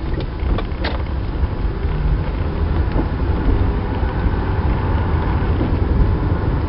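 Car cabin noise while driving: steady road and tyre noise with a heavy low rumble from vibration carried through the dashboard-mounted camera. A couple of light clicks a little under a second in.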